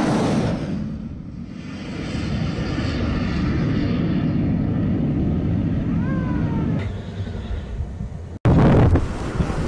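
Missile launching from a warship's vertical launch system: the rocket motor's roar is loudest at the start, dips about a second in, then runs on as a steady rumble. Near the end it cuts abruptly to wind buffeting the microphone.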